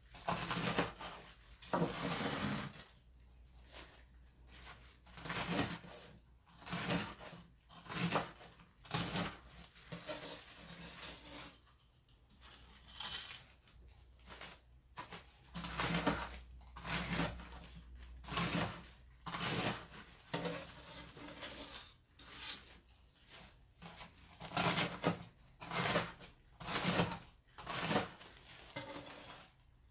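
A chef's knife slicing through crisp breaded pork cutlets (tonkatsu) on a wooden cutting board: a crunch of the fried crumb crust with each cut, the blade knocking on the board, about one cut a second.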